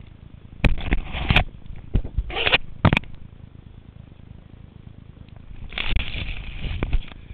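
Rustling and scraping of a camera's microphone brushed against grass and parachute fabric. It comes in several short bursts with a few sharp clicks, the longest burst about six seconds in.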